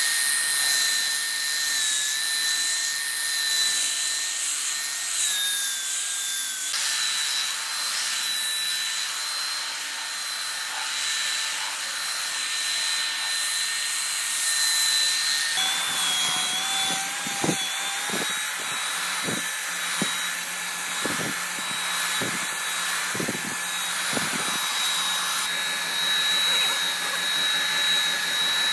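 Handheld electric power tool running against wood: a steady high whine that sags slightly in pitch now and then under load. In the second half a series of about eight knocks comes roughly once a second under the whine.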